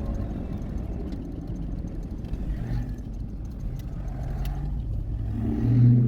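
Vehicle engine and road noise while driving, a steady low rumble with a louder engine drone swelling near the end.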